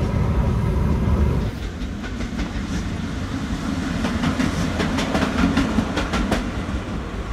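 A Siemens ER20CF diesel-electric locomotive running light past, its engine humming low while its wheels click over the rail joints in quick pairs for a few seconds before it fades away. A horn-like tone stops about a second and a half in.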